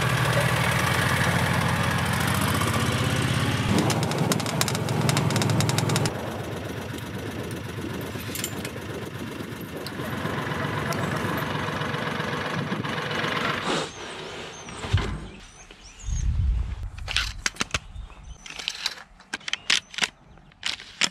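Side-by-side utility vehicle engine running, loud for about the first six seconds, then softer. After about fourteen seconds the engine gives way to quieter, scattered knocks and rustles.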